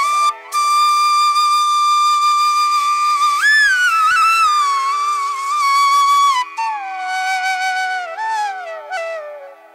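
Background instrumental music: a single flute-like melody of long held notes that slide and ornament in pitch, over a steady drone. The melody breaks off briefly near the start and moves to lower notes past the middle.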